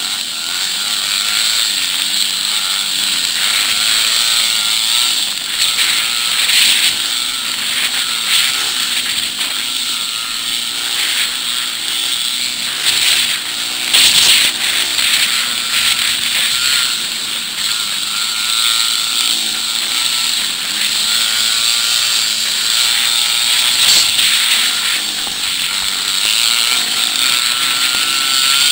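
Dirt bike engine running at varying revs, its pitch rising and falling with the throttle, over steady wind noise and rattling knocks from the rough trail.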